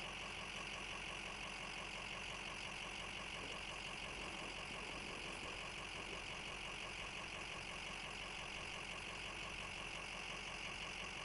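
Steady low hum of an idling vehicle engine under an even hiss, unchanging throughout.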